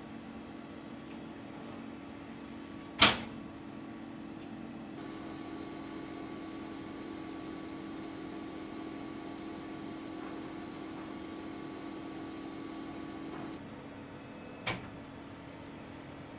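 Steel door of a commercial deck oven banging shut with one sharp, loud clang about three seconds in, then a steady hum from the running oven, with a lighter click near the end.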